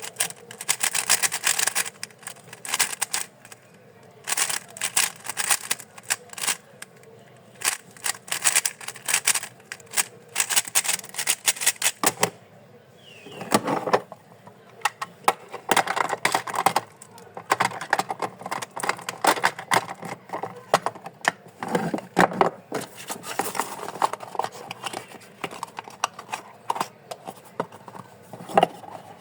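GAN 14 Maglev Pro magnetic 3x3 speedcube being turned quickly, its plastic layers clacking in rapid bursts of clicks with short pauses between them.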